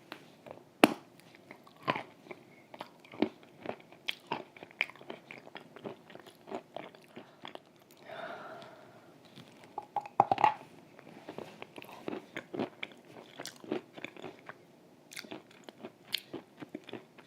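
Close-miked chewing of Volokonovka chalk soaked in cream: wet bites and irregular sharp mouth clicks, with a louder cluster of bites about ten seconds in.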